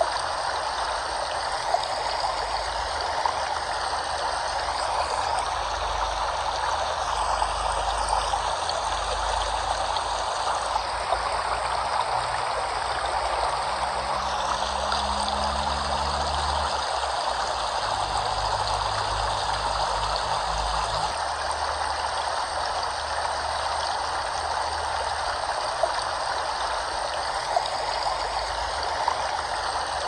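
Running water flowing steadily, an even rushing sound like a stream or small waterfall.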